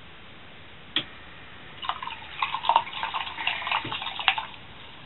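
Automatic washstand faucet running briefly as a cat paws at the stream, water splashing and spattering irregularly into the sink for a few seconds before stopping. A single sharp click about a second in.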